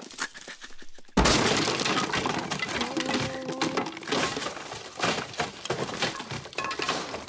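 Cartoon sound effects of an off-screen smash-up: a sudden loud crash about a second in, then several seconds of cracking, breaking and clattering as wood and objects are knocked over and broken.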